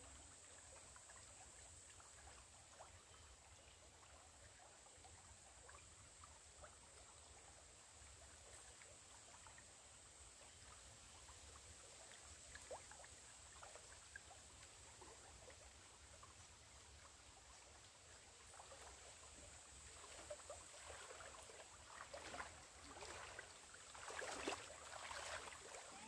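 Shallow stream trickling faintly, with soft splashes of feet wading through the water. In the last few seconds there is louder, irregular splashing as water is scooped up and splashed over the body.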